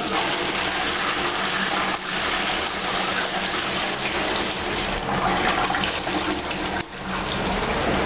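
Bellini sit-down toilet flushing: a steady rush of water swirling through the bowl and down the drain, with a brief dip just before the end as the flow changes to the bowl refilling.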